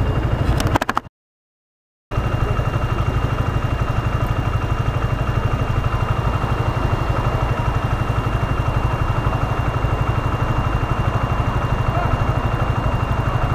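Honda CBR125 motorcycle's single-cylinder four-stroke engine idling steadily with an even low pulse. The sound cuts out completely for about a second near the start, then the idle carries on.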